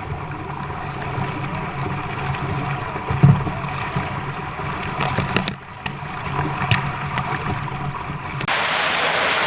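Water and trout rushing out of a fish-stocking truck's tank into the lake, over a steady low hum, with a few small knocks and splashes. Near the end the sound jumps abruptly to a louder, even rush of water.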